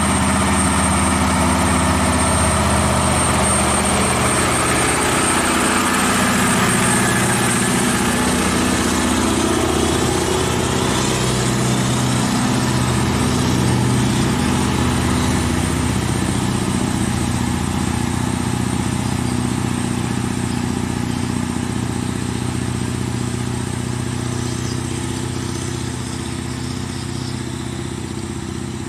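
Scania R580 truck's V8 diesel engine running steadily, its pitch shifting a little around ten seconds in, then gradually growing quieter through the second half.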